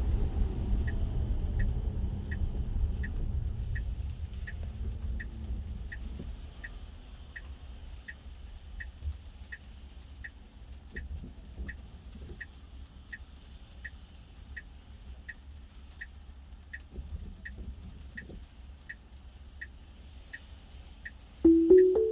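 Tesla Model 3 turn-signal indicator ticking steadily, about one and a half ticks a second, for a left turn, over low road and tyre rumble that fades as the car slows. Near the end a short, loud, rising two-note chime sounds from the car.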